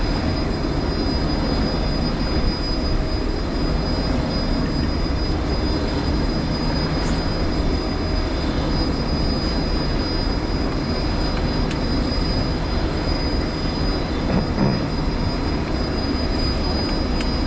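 Steady machinery drone with a rushing, wind-like noise, unchanging throughout, with a faint thin high whine held over it.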